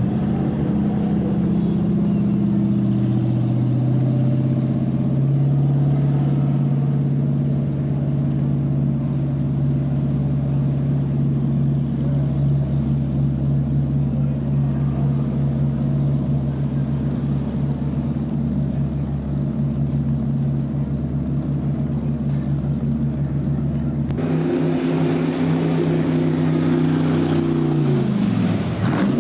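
Q Boat's engine running, its note climbing over the first few seconds as the boat speeds away, then holding steady. Near the end a second steady engine note drops in pitch just before the end.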